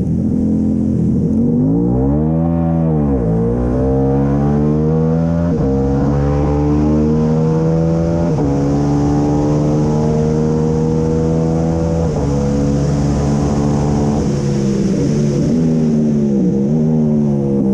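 KTM 890 parallel-twin engine of a racing sidecar outfit at race pace, heard onboard: the revs climb through the gears with a short dip at each upshift, after a brief swell and fall of revs about two seconds in. Near the end the revs drop as it slows, then pick up again, with a steady rush of wind over it.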